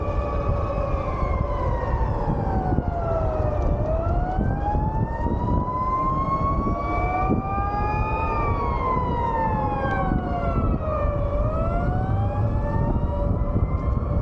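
Civil-defence warning siren sounding in a test of the public warning system. Its pitch slides slowly down, up, down and up again, a rise and fall taking about seven to eight seconds, over a steady lower tone.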